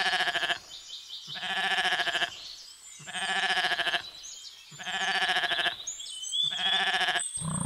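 Ibex bleating: a series of about five wavering, goat-like bleats, each about a second long, spaced roughly one and a half seconds apart.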